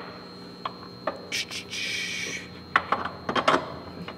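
Hand tools working on an ATV's front suspension while the tie rods are bolted in: scattered metal clicks and clinks, with a short rasping noise about halfway through.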